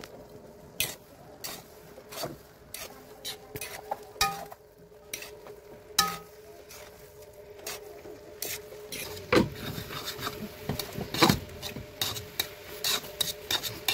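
A metal spatula stirring and tossing instant noodles in an aluminium wok, scraping and clicking against the pan at irregular intervals, busier and louder in the second half, over a steady low hum.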